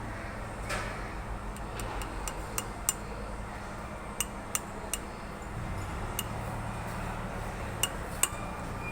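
Sharp metallic clinks and ticks of hand tools and metal parts being handled, about a dozen, irregular, the loudest about three seconds in and near the end, over a low steady hum.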